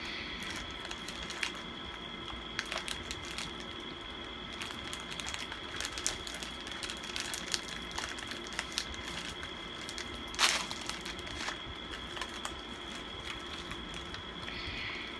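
Foil snack wrapper of a matcha green tea Pocky pack crinkling and crackling in the hands as it is opened, with scattered sharp crackles and one louder crackle about ten seconds in.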